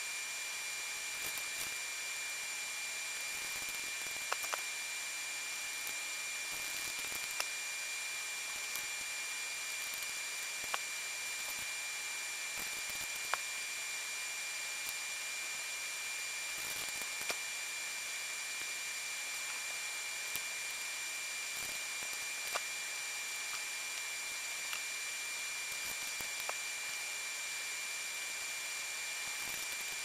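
Steady hiss with a thin, high, unchanging whine underneath, and every few seconds a single small click or tap as a small nail-polish bottle and craft trim are handled on a cardboard mat.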